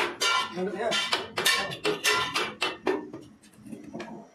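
Hand tools, a hammer and a steel bar, clanking against the steel blades of a reel-type grass cutter's cutting cylinder: a quick, irregular series of metallic knocks with a short ring after each, thinning out near the end.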